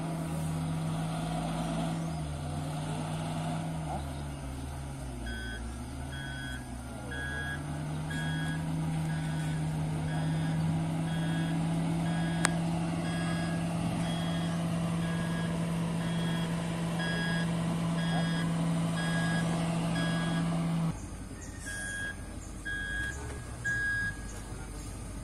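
Heavy earth-moving machine's diesel engine running with its reversing alarm beeping, about one beep every three-quarters of a second. The engine sound cuts off suddenly near the end while the beeps go on.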